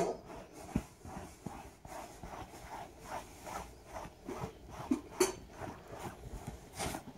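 Rubber-gloved hand rubbing velvet upholstery in quick repeated strokes to pull up pet hair: a soft brushing scuff about twice a second, with two sharper scrapes in the second half.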